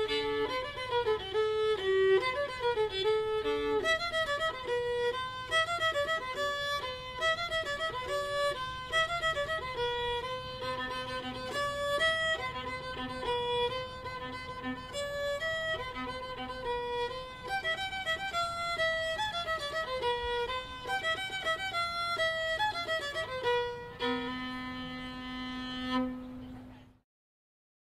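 Background music: a solo fiddle plays a moving melody, ending on a long held note and cutting off to silence near the end.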